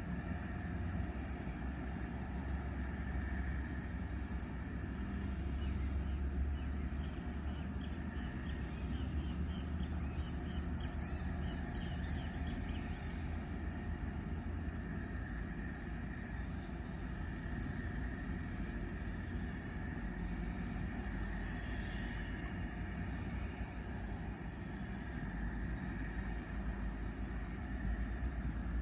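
Outdoor riverside ambience: a steady low rumble with short high chirping calls recurring throughout, and a run of quick chirps about ten seconds in.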